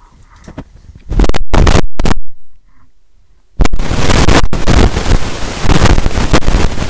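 Two blasts of loud, distorted noise through a handheld microphone, overloading it: a short one about a second in and a longer one from about three and a half seconds on, with a near-quiet gap between.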